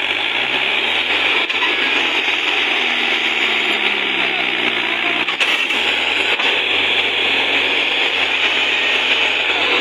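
Force Balwan 550 tractor's diesel engine running hard under load, straining to pull a loaded trolley that has got stuck in a soft field. The engine note rises and falls during the first few seconds, then holds steady.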